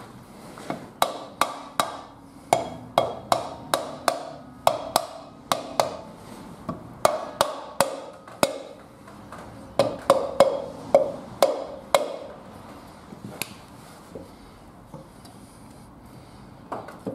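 A mallet tapping a cast-iron rear brake drum to drift it onto the hub over new brake shoes. About two dozen sharp, ringing knocks come two or three a second, then a few scattered taps near the end.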